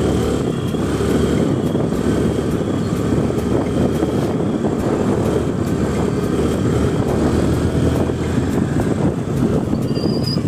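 Wind buffeting a helmet-mounted phone's microphone while a Honda scooter rides along at steady speed, its engine running underneath the wind noise.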